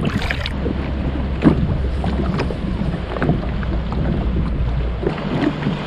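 Kayak paddles dipping and splashing in the sea, short strokes about a second apart, over a steady low rumble that stops about five seconds in.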